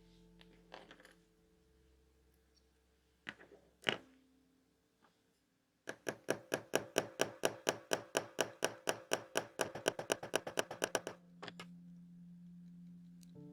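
Rolex Date 1500 automatic wristwatch ticking in a fast, even rhythm of about five to six ticks a second, close to the microphone, for about five seconds near the middle. A few separate clicks come before it, over soft ambient background music.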